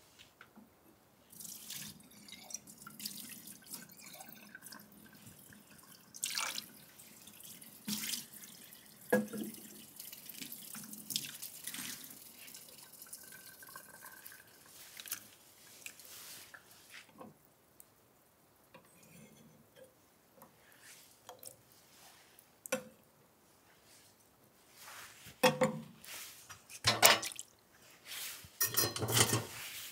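Irregular small drips and ticks, then louder knocks and scrapes in the last few seconds as a metal pot is lifted and set onto a charcoal brazier.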